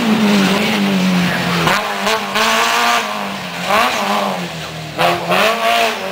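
Rally car engine at high revs. Its pitch falls as the car brakes and slows for a corner, there are a few sharp pops around two seconds in, then it climbs again under acceleration, with a drop at a gear change near five seconds.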